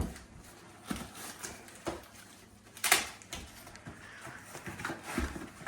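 Objects being handled and set down while a box is unpacked: a few separate knocks and clicks with faint rustling between them, the sharpest click about three seconds in and a dull thump near the end.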